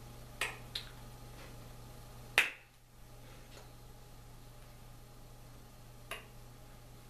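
Four sharp clicks from hands striking together during signing, the loudest about two and a half seconds in, over a steady low hum.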